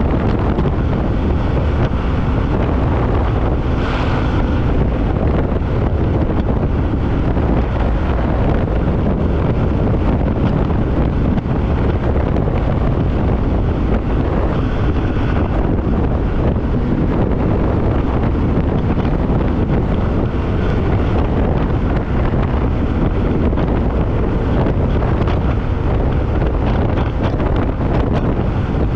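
Snowmobile running steadily at trail speed, with heavy wind rushing over the microphone.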